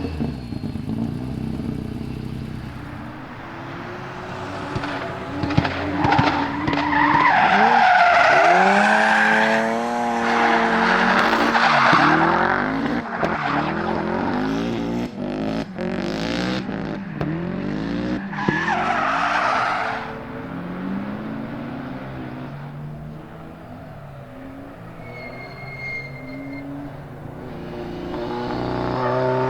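Turbocharged Mitsubishi 4G63 four-cylinder engine of a rear-wheel-drive Lancer Evo X drift car, revving up and down as it drifts, with tyres squealing twice and sharp cracks in between. The engine is misfiring. It fades toward the end, then comes close again.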